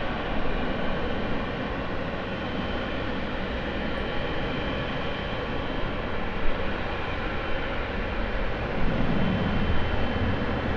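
Jet airliner engines running steadily, a broad rushing noise with a faint high whine.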